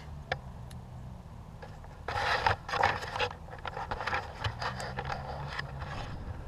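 Close scraping and rustling with scattered clicks as the GoPro camera is handled and moved about. The loudest stretch is about two seconds in, and a steady low hum runs underneath.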